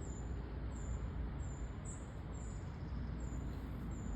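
A steady low rumble under a bird's repeated thin, high chirps, about two a second.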